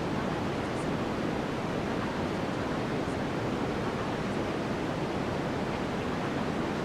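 Steady generated white-noise track, an even hiss with no swells or breaks, used as the masking layer of a subliminal audio.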